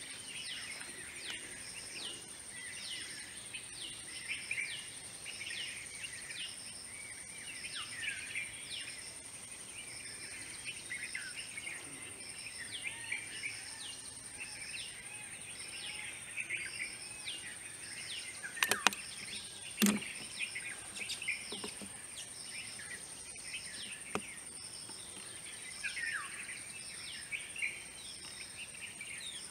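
Forest ambience: many wild birds chirping and calling over a steady high insect drone, with a short high note repeating about every two-thirds of a second. Near the middle come two sharp, loud snaps about a second apart, the loudest sounds here.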